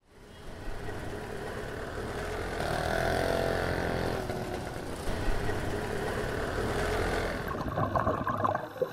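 A motor engine running steadily amid outdoor background noise, fading in over the first second.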